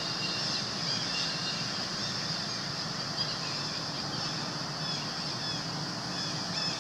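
Forest ambience: a steady high-pitched hiss, with scattered short bird chirps and a low background rumble.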